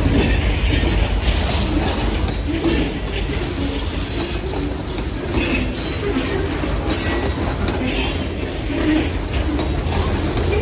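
Freight train's open-top hopper cars rolling past close by: a steady low rumble of steel wheels on rail with irregular clanks and rattles.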